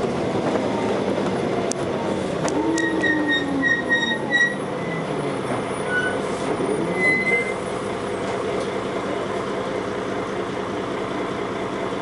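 Dennis Arrow double-decker bus running, heard from inside the passenger saloon: steady engine and ZF gearbox sound with a whine that falls in pitch from about three to five seconds in. Short high squeaks come from the bus around three to four seconds in and again near seven seconds, with a few clicks and rattles.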